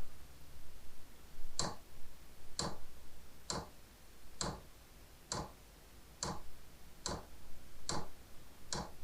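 Diesel heater's fuel pump ticking during startup: evenly spaced sharp clicks, a little more than one a second, the first about one and a half seconds in.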